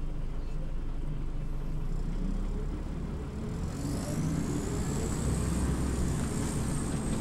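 Scania OmniLink CL94UB city bus's diesel engine running. About halfway through, the engine note grows louder as it pulls away, and a high whine rises and then holds steady.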